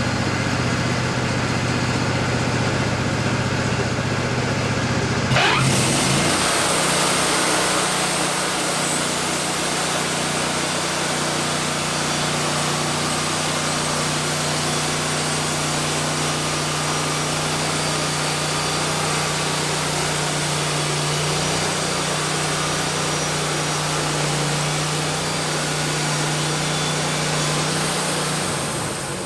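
Wood-Mizer LT40 band sawmill running. About five seconds in, the band blade goes into the cedar log and a loud, steady sawing hiss sits over the engine. The sawing stops near the end.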